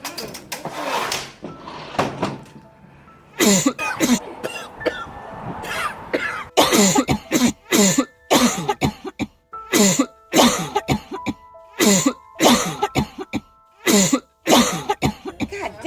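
A man coughing over and over in harsh fits, a few coughs at first, then a long run of about two coughs a second, each dropping in pitch. Background music with held tones comes in under the coughing about halfway through.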